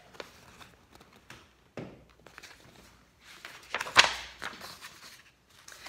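Hardback picture book handled and a page turned: faint rustles and soft knocks, then a short sharp page flick about four seconds in.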